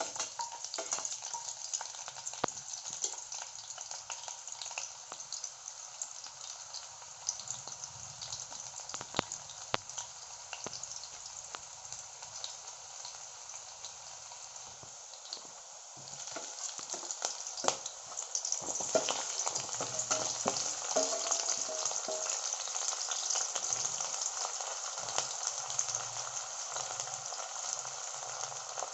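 Food frying in hot oil in a pan, a continuous sizzle, with scattered clicks of stirring. The sizzle gets louder about sixteen seconds in.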